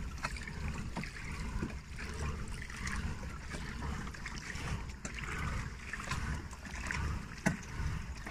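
A kayak being paddled on calm water: soft swishes and light splashes of the paddle blades dipping, with a few faint knocks, over a low rumble of wind on the microphone.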